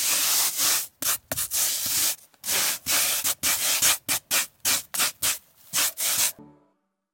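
Hand rubbing or sanding in repeated strokes: one longer stroke, then a run of short strokes at roughly two to three a second, stopping shortly before the end.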